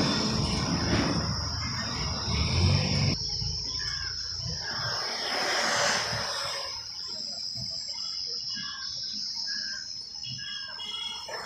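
A loud rushing rumble cuts off abruptly about three seconds in. After it, outdoor ambience remains: scattered bird chirps over a steady high insect-like drone.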